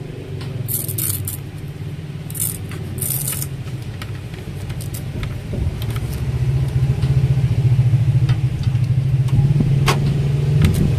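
A steady low engine-like rumble, getting louder about six seconds in, with three brief scraping rustles of plastic being handled in the first few seconds.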